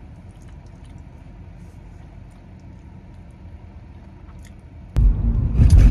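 Low hum inside a parked car with faint small mouth clicks from chewing and lip-licking. About five seconds in it cuts suddenly to the much louder low rumble of the car driving, heard from inside the cabin.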